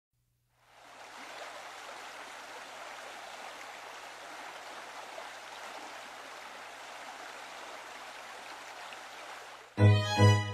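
A steady, even rushing noise, like running water, fades in and holds; near the end music starts abruptly and loudly.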